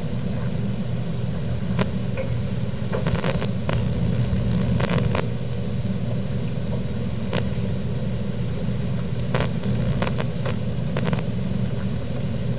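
Steady low hum and hiss of an old videotape recording's room tone, with a scattering of short clicks and ticks.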